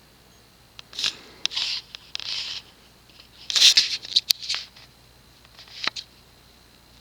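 Close rustling and scraping noise in several short bursts, with sharp clicks mixed in. Between the bursts there is only a faint steady background.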